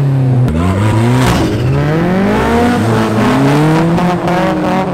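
Hyundai Genesis Coupe's engine revving hard as the car pulls away, its pitch climbing and dropping several times.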